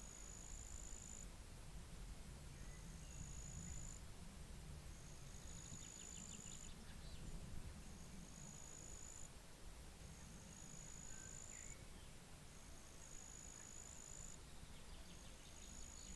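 A high, thin insect buzz, each one lasting about a second and a half and rising slightly, repeating about every two seconds, over a low wind rumble. A few faint bird chirps come in between.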